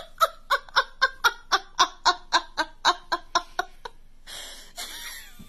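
A person laughing in a long, even run of short 'ha' pulses, about four a second, stopping about four seconds in.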